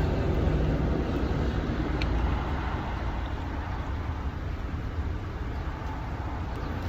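Steady low rumbling noise with a faint hiss above it, easing a little after about two seconds, with one faint tick.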